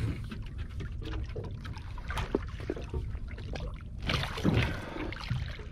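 Water sloshing and splashing against the side of a small fibreglass skiff, where a gaffed bluefin tuna is held at the surface, over a steady low rumble; a louder splash or scuffle comes about four seconds in.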